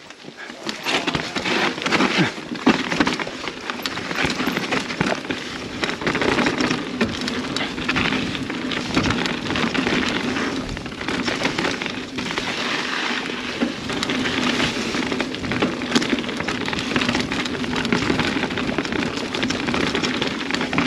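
Mountain bike riding down a rocky, sandy dirt trail: a continuous crackling rush of tyres on loose ground, full of small knocks and rattles, with a steady low hum underneath.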